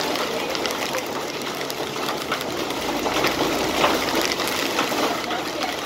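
Torrential wind-driven rain pouring down, a dense steady rush with many small sharp hits of drops striking surfaces.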